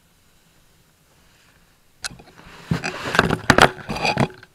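About two seconds of near silence, then a busy run of knocks, clicks and scrapes as the round plastic heater air outlet is handled and pushed into a freshly cut hole in a wooden panel.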